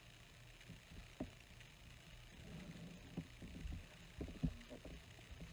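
Faint handling sounds: a few light taps and knocks as a steel ruler and a piece of cardstock are shifted on a craft cutting mat, over a low steady hum.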